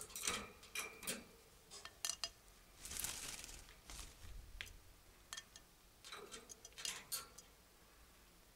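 Scattered sharp clicks and soft rustling from cockatiels preening freshly wet feathers and moving about a wire cage, with a longer burst of rustling about three seconds in.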